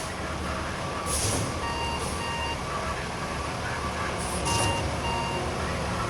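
Concrete mixer truck backing up: its reversing alarm beeps over the steady running of its diesel engine, with a few short air hisses.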